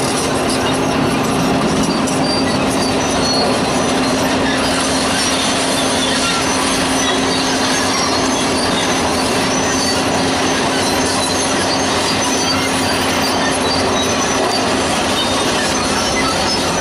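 Loud, steady machinery noise with a constant low hum and scattered faint high squeaks.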